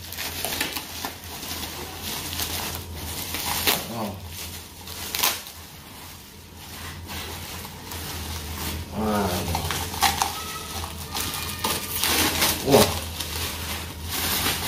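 Bubble wrap rustling and crackling irregularly as a boxed LED street light is unwrapped and lifted out, over a low steady hum. A few brief voice-like sounds come through about two-thirds of the way in.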